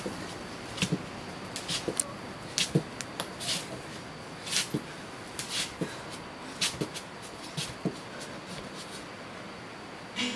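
Dancer's bare feet on a smooth floor: irregular soft thuds and brief slides and scuffs, scattered through a steady background hiss.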